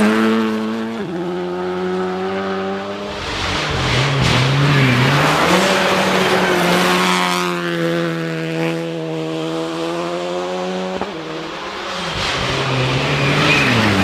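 Rally car engine worked hard on a closed stage. The pitch holds high, drops with a gear change about a second in, dips low and wavers around four to five seconds, then climbs and holds steady before cutting off sharply near eleven seconds and wavering again.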